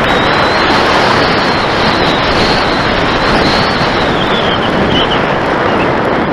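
Loud, steady wind rush over the underwing camera's microphone as an electric RC glider flies low and fast, with a faint high whine from its 1150kv brushless motor and 10x7 propeller that dips slightly a little past the middle.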